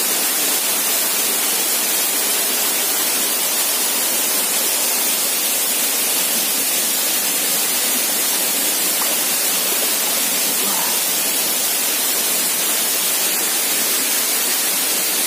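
Waterfall: the steady rush of falling water pouring into the pool.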